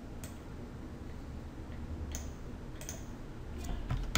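A few scattered clicks from a computer mouse, over a low steady hum.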